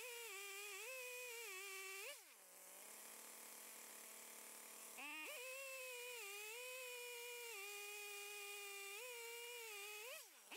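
Stihl MS 880 two-stroke chainsaw running at full throttle in a chainsaw mill, ripping along a red oak log, its pitch sagging and recovering a little under the load. About two seconds in the throttle is let off and the engine drops to a faint idle; about five seconds in it revs back up to cutting speed, and near the end it is let off again.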